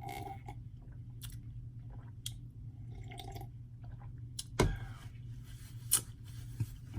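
Close-up chewing and small mouth clicks of a person eating lasagna roll-ups, over a steady low hum. A sharp knock comes a little past halfway, and a smaller click about a second later.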